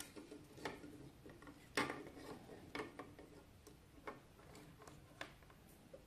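Faint, scattered clicks and taps of handling: multimeter test probes and a flashlight's LED reflector head being handled as the probe tips are set on the LED contacts, with one sharper tap a little under two seconds in.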